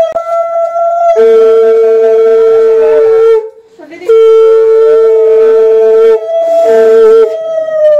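Conch shells (shankha) blown in long held notes during the Bhai Phonta ritual, most likely two at once. A higher note runs on throughout, while a lower one joins about a second in and breaks off twice. Near the end the higher note sags in pitch and dies away.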